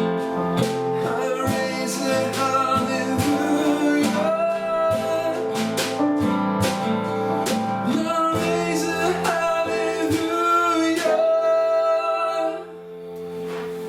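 Praise and worship song: singing over guitar with a steady beat, ending about twelve and a half seconds in, with the final chord ringing on.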